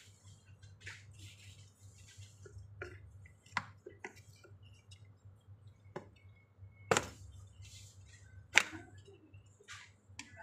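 A stroller's fabric seat cover being pulled and tucked onto its frame: fabric rustling, with several sharp clicks and knocks from the frame and its fittings.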